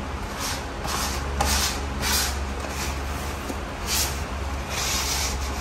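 Rubber grout float scraping and smearing sanded grout across floor tiles and into the joints, in a series of irregular scraping strokes.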